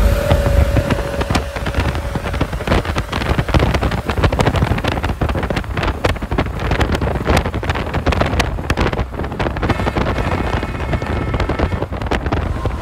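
Wind buffeting the microphone and road noise from a vehicle driving alongside a White GMC semi tractor, full of rapid crackling gusts. A single steady horn note, from the truck's Hadley air horn, fades out in the first two seconds.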